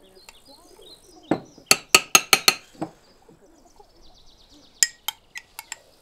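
A metal spoon clinking and scraping against the inside of a small glass jar: a quick run of about six sharp clinks a second or so in, then a few lighter ones near the end. Birds chirp faintly in the background.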